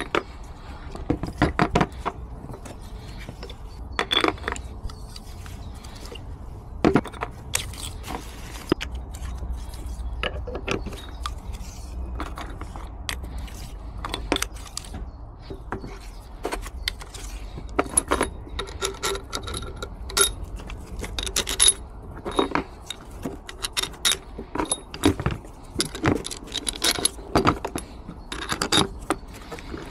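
Steel rocker arms clinking and scraping on their rocker shaft as the worn inlet rocker arms of a DAF MX-11 engine are slid off and new ones fitted. There are many sharp metallic clinks at irregular intervals over a faint low hum.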